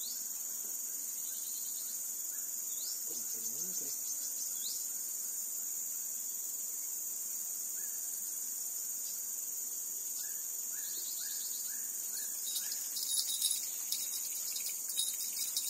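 Steady, high-pitched drone of insects, with a bird giving a short run of five falling chirps about ten seconds in. A few light clicks come near the end.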